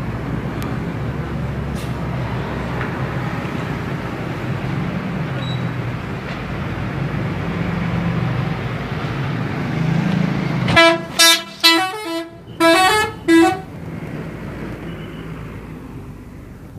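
Bus engine running steadily, then about eleven seconds in a telolet multi-tone horn plays a quick melody of five or six short blasts at changing pitches, after which the engine runs on, fading.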